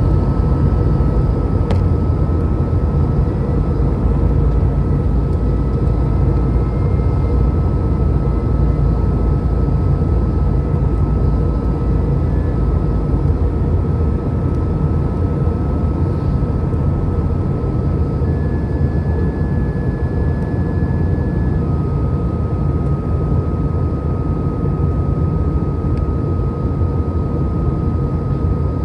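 Airbus A319-100 cabin noise on descent toward landing, heard from a window seat over the wing. A steady, deep rumble of the jet engines and airflow runs throughout, with a thin steady whine that steps up in pitch about eighteen seconds in and settles back lower a few seconds later.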